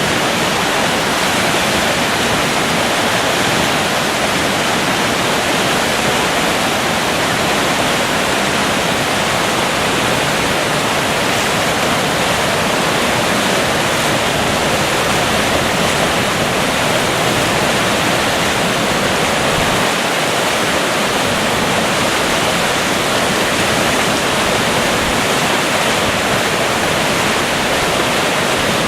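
River water rushing steadily over rocks, a loud, even roar that does not let up.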